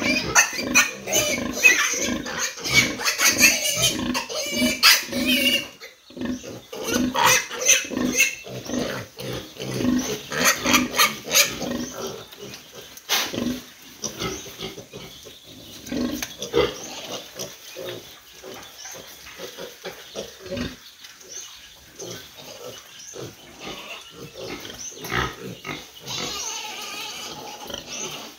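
A sow and her litter of suckling piglets grunting, a rapid string of short grunts and squeaks at the teats. The sounds are louder for about the first six seconds, then carry on more quietly.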